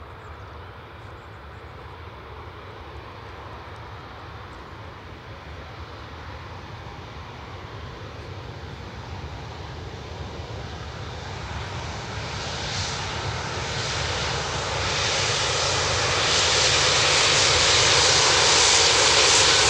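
Airbus A330-300's twin Rolls-Royce Trent 700 turbofan engines running at low power as the airliner rolls out after landing and comes nearer. The sound grows steadily louder, and a strong hiss fills in over the last several seconds, with a thin whine near the end.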